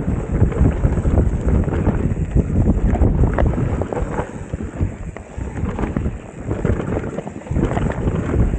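Enduro mountain bike ridden fast down a dirt forest trail, heard from a chest-mounted camera: wind buffeting the microphone over the rolling of the tyres on dirt, with the bike rattling and knocking over bumps.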